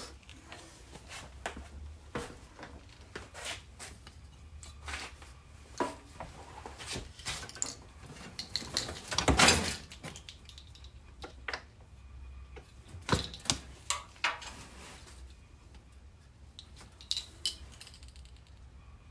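Scattered knocks and clinks of tools and metal chassis parts being handled, with one louder, longer scraping clatter about nine seconds in. A low steady hum runs underneath.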